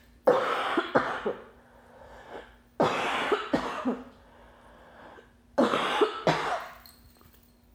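A woman coughing in three fits, each of several coughs in quick succession, about two and a half seconds apart. It is the cough of a chest illness that she ties to her asthma.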